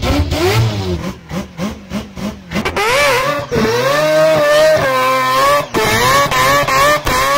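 Naturally aspirated four-rotor rotary engine of a Mazda RX-7 FD drift car, exhausting nearly straight through one silencer, revving hard. First comes a run of quick throttle blips, then about three seconds in the revs climb and are held high and wavering while the car slides with its tyres smoking.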